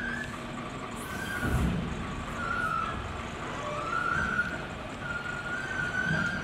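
Steel squealing and groaning in wavering, uneven spells as a hook-lift truck shifts a waste-compactor container, over the low running of the truck, with a low thump about one and a half seconds in.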